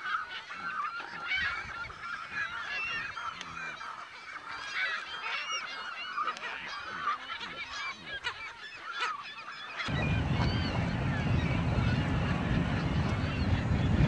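Nesting colony of pelicans and gulls: many short calls overlapping in a continuous din. About ten seconds in, a steady low rumble starts and drowns the calls, which carry on faintly above it.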